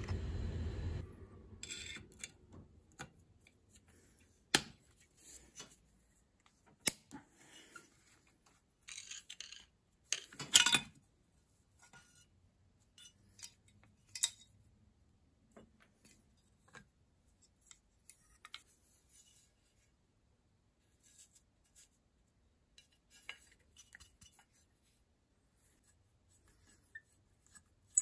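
Metal parts of a rusty Capewell hand plane being taken apart and handled: scattered clinks, taps and light scrapes, with a few sharper knocks, the loudest about ten and a half seconds in. A steady low noise fades out about a second in.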